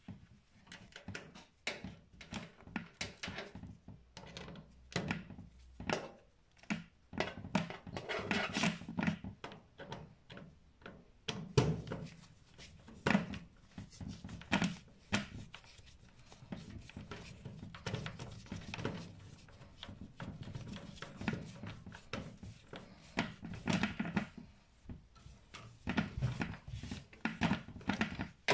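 Gloved hands working stripped copper wire into the terminal block of an electric oven: irregular small clicks, taps and rubbing.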